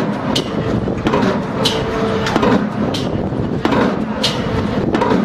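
STARKE hydraulic impact hammer driving a pile, striking about three blows every two seconds over the steady noise of the rig. Every other blow carries a higher metallic ring.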